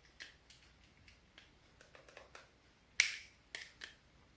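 Plastic clicks from the thumb brake-and-lock buttons of two retractable dog leashes being worked: a few faint ticks, then a sharp click about three seconds in, followed quickly by two smaller ones.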